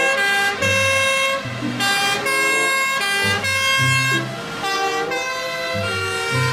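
Two-tone sirens of European fire engines on an emergency run, sounding the alternating 'tatü-tata' high and low notes. More than one siren sounds at once, out of step, so the notes overlap.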